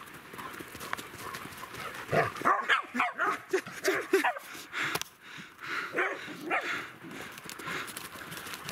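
Dogs barking at play: a run of short barks about two to four seconds in, then a few scattered barks.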